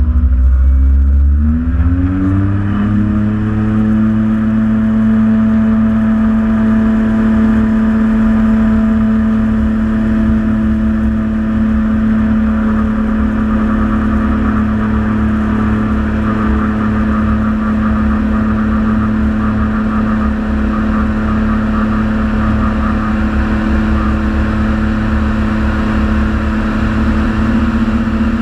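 Atol 650 amphibious light sport aircraft's engine and propeller coming up to power, the pitch rising over the first few seconds and then holding steady through a takeoff run on water. A heavy rumble of wind and water rush on the wing-mounted camera runs underneath.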